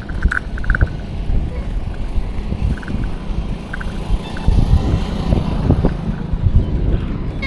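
Wind buffeting the microphone over a steady low road and vehicle rumble, with uneven thumps throughout and a few faint short high chirps.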